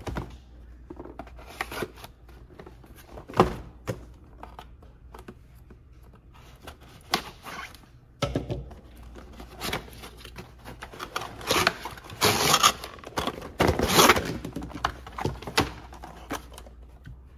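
Cardboard blaster box being slit open with a folding knife and handled: tearing, scraping and knocks of the box. The noises are sparse at first and busiest in the second half.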